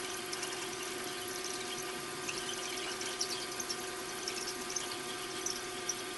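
Milling machine spindle running steadily with a 5 mm drill feeding down into a carburettor body: an even motor hum with faint scattered high ticks.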